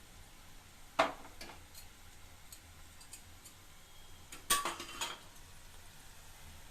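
Metal utensil clinking against a kadai: a sharp knock about a second in, a few light ticks, then a quick cluster of clinks near the end.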